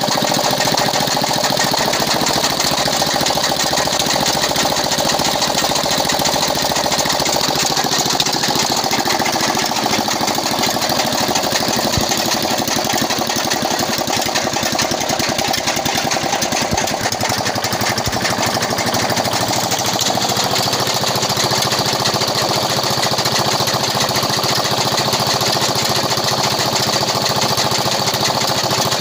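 A 4 hp Swan single-cylinder diesel engine running steadily at speed with a fast, even chug.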